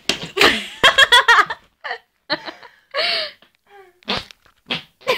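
A girl's voice making a string of short, separate vocal noises, some breathy and some voiced with a wavering pitch.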